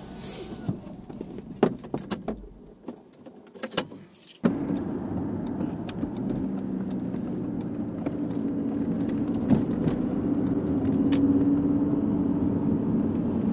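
Keys jangling and small clicks of handling inside a parked car, then, after a sudden change about four seconds in, the steady hum of engine and road noise inside a moving car's cabin.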